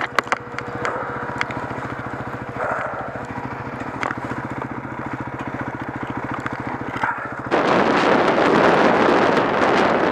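Dirt bike engine idling with an even, rapid beat and a few sharp clicks, then about three-quarters through the throttle opens and the bike pulls away, turning into a much louder rush of engine and wind on the microphone.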